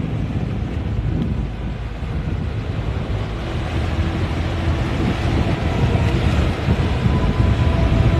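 Wind buffeting the microphone over the low rumble of yacht engines passing through the inlet.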